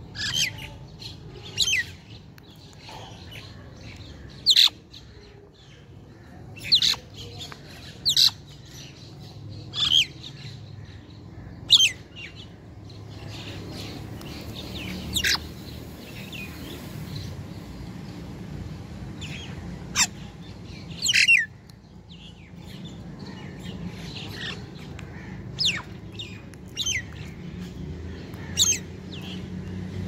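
House crows calling while they feed: about a dozen short, harsh calls at irregular intervals of one to four seconds, each sliding down in pitch.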